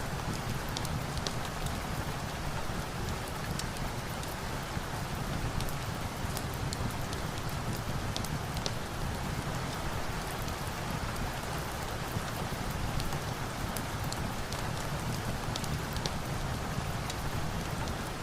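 Steady rain falling, with scattered sharp clicks and ticks over the even hiss.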